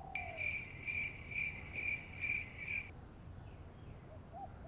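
Cricket chirping: a high, pulsed chirp repeating about twice a second for roughly three seconds, then stopping.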